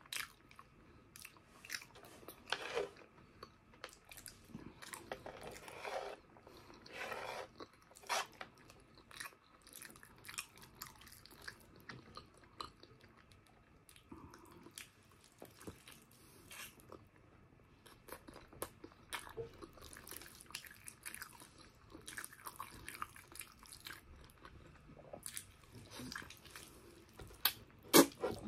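Close-miked chewing of tender braised pork hock (pork pata estofado) with rice: irregular mouth clicks and smacks, with a louder bite into the hock near the end.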